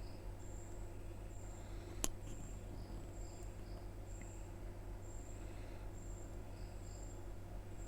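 Faint insect chirping, short high chirps repeating evenly about once a second, over a steady low hum, with a single sharp click about two seconds in.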